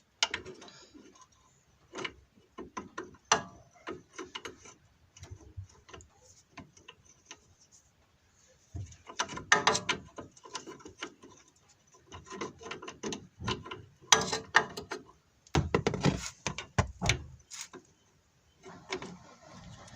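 Ratchet and 12 mm socket working a Renault Logan's brake caliper bolts, tightening a caliper that had worked loose and was knocking. The sound is irregular metal clicks and clanks in short clusters with pauses between.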